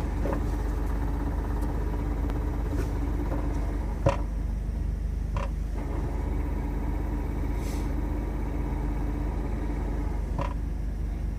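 2002 Jeep TJ idling in neutral with a steady hum from its NV3550 transmission, a noise the owner guesses comes from the input shaft bearing or a pilot bearing with the wrong inner diameter. A few light clicks, the sharpest about four seconds in.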